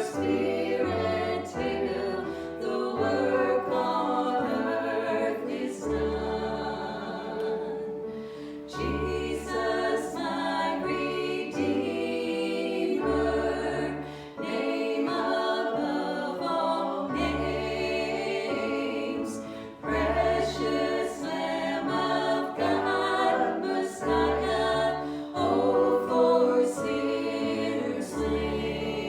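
Church worship music: a group of voices singing together over instrumental accompaniment, with a bass line and a steady beat.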